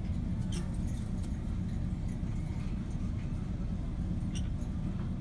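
Steady low background rumble with a few faint, short clicks.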